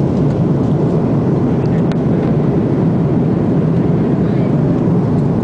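Steady cabin noise inside an Airbus A330 airliner about ten minutes after takeoff: the even, low roar of the jet engines and the airflow past the fuselage, with a faint click about two seconds in.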